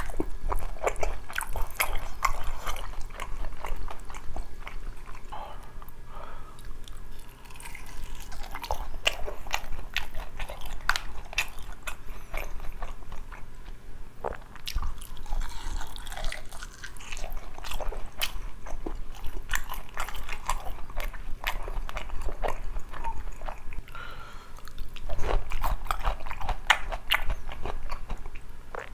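Close-miked eating of sauced Korean fried chicken: irregular crisp crunches from bites into the fried coating, with chewing in between.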